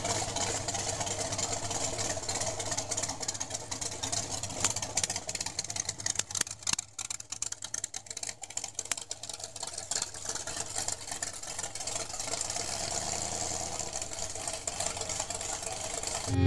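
Hot rod engine idling with a steady low rumble as the car rolls slowly along. A stretch of crackling clicks comes in the middle.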